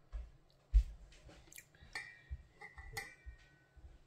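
Soft knocks and a faint clink of kitchenware being handled; the sharpest knock comes just under a second in, and a light ringing tone sounds about two and three seconds in.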